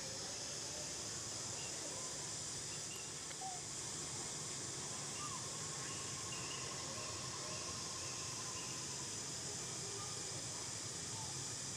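Steady outdoor ambience: a high, even insect drone with scattered faint short chirps.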